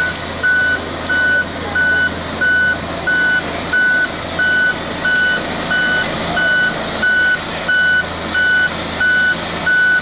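Reversing alarm of a single-drum road roller backing up: a high-pitched beep repeating at an even pace over the steady low running of the roller's diesel engine.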